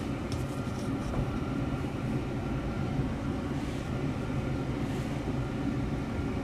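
Isuzu 1.9-litre diesel with a twin-turbo kit, heard from inside the cab while driving at light throttle: a steady low engine and road rumble with no revving.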